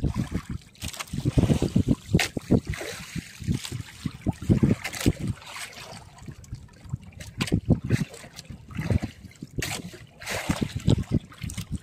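Sea water splashing and sloshing against a small fishing boat, with irregular knocks and thumps.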